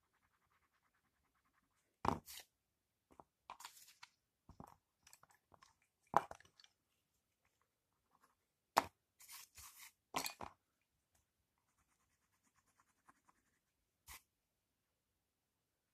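Coloured pencil scratching softly on paper in short stretches of shading, broken by about eight sharp clicks and knocks, which are the loudest sounds.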